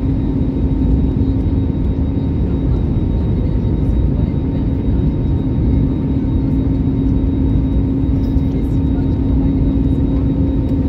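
Airliner cabin noise on the landing approach: a steady roar of the jet engines and rushing air, with a constant low hum running through it.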